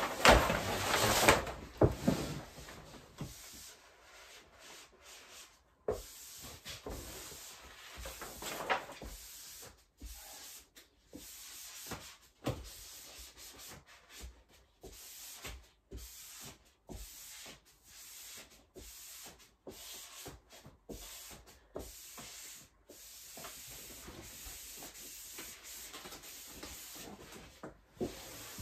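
Irregular rubbing and scraping strokes of peel-and-stick vinyl wallpaper being pressed and smoothed onto a wall, louder in the first couple of seconds.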